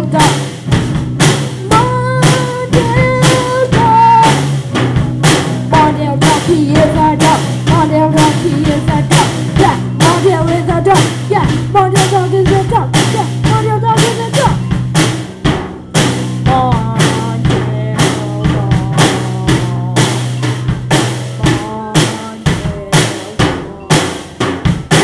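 A band playing a rock song without words: a drum kit keeps a steady beat with snare and bass drum under a held low note and a wandering melodic line. The low note drops out about three seconds before the end, leaving mostly the drums.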